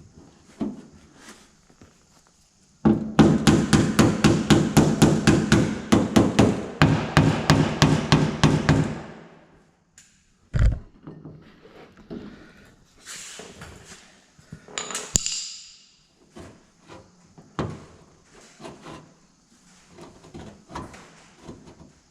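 Body hammer tapping rapidly on a steel car door panel, about five ringing strikes a second for some six seconds, working a dent. After it come one heavier knock and a few scattered lighter knocks.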